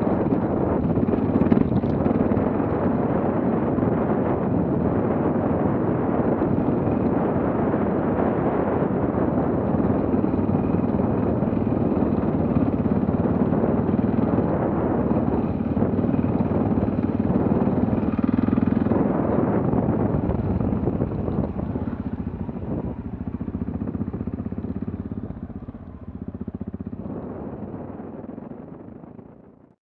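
Adventure motorcycle engine running at low speed over rough ground, heard from the bike with wind on the microphone. It fades out over the last few seconds.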